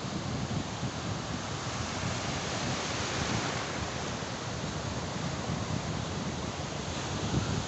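Sea surf breaking and washing up the beach in a steady rushing hiss, with a wave's wash swelling about three seconds in. Wind buffets the microphone with a low rumble.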